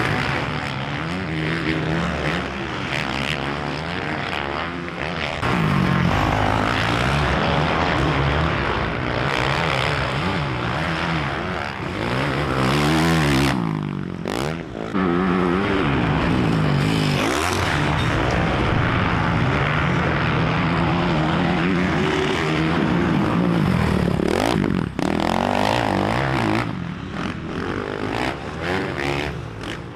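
Red Honda motocross bike's engine revving hard, its pitch climbing and dropping again and again as the rider twists the throttle and shifts through gears around the track, with a couple of sudden breaks in the sound.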